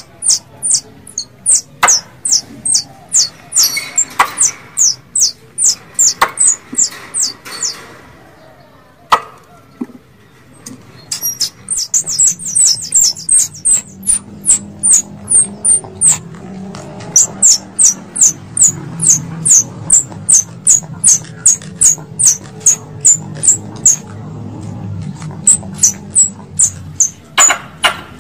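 Squirrel calls: a quick series of sharp, high-pitched chirps, about three a second, each dipping slightly in pitch, with a pause of a few seconds about a third of the way in.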